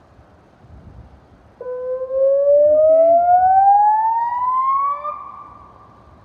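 Electronic, loudspeaker-type outdoor warning siren sounding a rising wail. After a faint fading tone, a new wail starts low about one and a half seconds in, climbs steadily in pitch for about three and a half seconds, then holds and dies away near the end.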